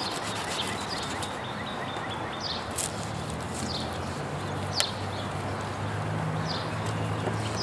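A half lemon coated in baking soda rubbed back and forth over a plastic headlight lens, a scratchy rubbing with small clicks. Birds chirp in short falling calls throughout, and a low steady hum comes in about three seconds in.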